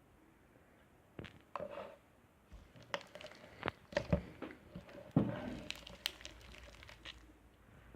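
Slime being squeezed and stretched in the hands, giving irregular clicks and pops from about a second in.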